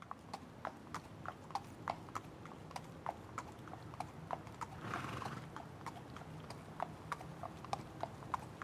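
Footsteps on wooden porch boards and wooden steps: an even walking pace of sharp knocks, about three a second.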